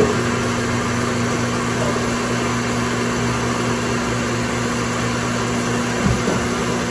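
Steady whirring of an electric appliance running, with a constant low motor hum under it.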